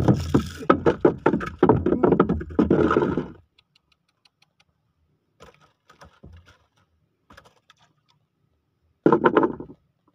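Scraping, rustling and knocking from a fishing handline being hauled in by hand over a small wooden boat. The noise is loud and crackling for the first few seconds, drops to scattered light clicks, then comes back as a short loud burst near the end.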